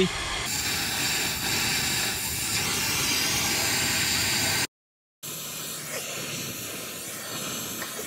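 Oxy-acetylene torch flame hissing steadily as it heats a copper refrigerant line joint for brazing. The hiss cuts out for a moment just past halfway, then carries on a little quieter.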